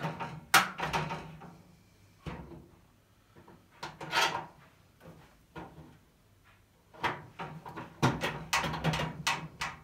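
Scattered knocks, clunks and short scrapes of a steel tool chest being worked out from inside a roller cabinet, with one cluster about four seconds in and a denser run of knocks near the end.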